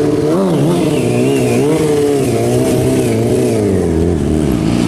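Sport motorcycle engine revving, its pitch rising and falling again and again as the throttle is worked.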